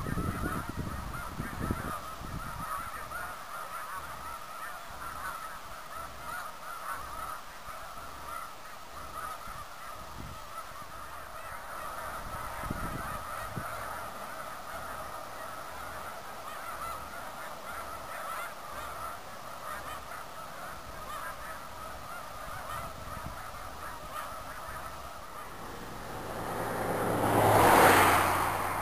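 A large flock of snow geese calling continuously, a dense chorus of honking. Near the end a loud rushing noise swells up and then drops.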